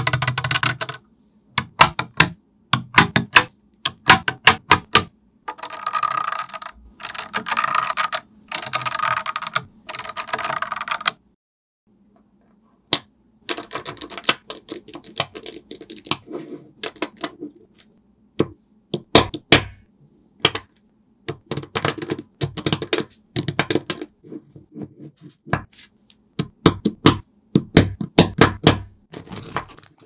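Small magnetic balls clicking and snapping together as sheets and strands of them are handled, in quick runs of sharp clicks with some longer stretches of rattling. The clicking stops for about two seconds near the middle.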